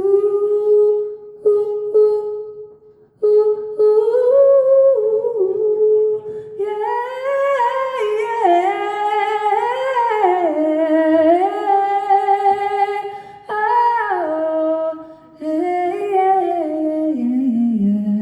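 A singer humming a wordless melody: one held note for the first few seconds, then a gliding, moving line that sinks to a lower note near the end.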